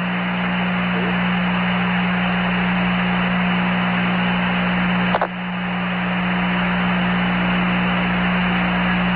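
Steady radio static with a low hum on the Apollo 11 air-to-ground voice link, the channel open between transmissions. A brief click and dropout come about five seconds in.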